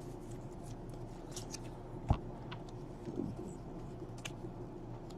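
Quiet handling of trading cards and pack wrappers, with a few small clicks and one sharper tap about two seconds in, like a card or pack set down on the table.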